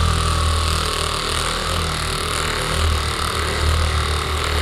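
Several electric massage devices running at once against a person's body on their maximum setting: a steady low buzzing hum.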